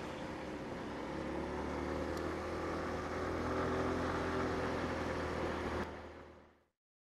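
Sinnis Shuttle scooter's engine running under way with wind rush, its note rising slightly as it gathers speed. The sound fades out to silence shortly before the end.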